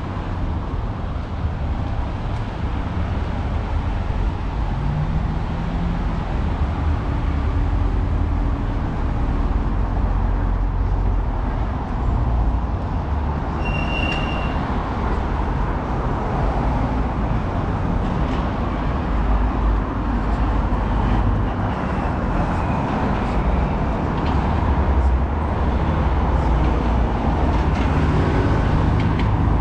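Road traffic on a city street: a steady rumble of passing vehicles, with a short high-pitched tone about halfway through.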